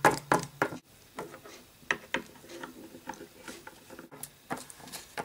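Small plastic toy figures tapping and knocking on a hard surface as they are moved by hand: a quick run of clicks at the start, then scattered single taps.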